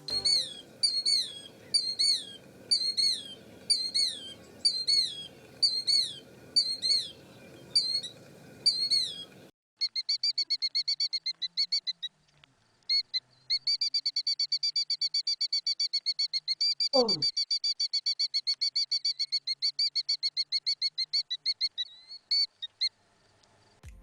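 Killdeer calling. First comes a series of shrill two-syllable 'kill-deer' calls, about one a second. Then, after a cut, a long fast trill of rapid repeated high notes.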